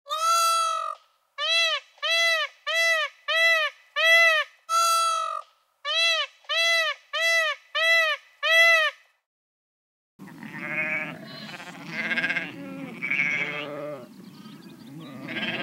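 Indian peafowl (peacock) calling: a run of about fourteen short, clear, high-pitched calls, roughly two a second, with a brief break partway through. After about a second of silence, sheep bleat repeatedly.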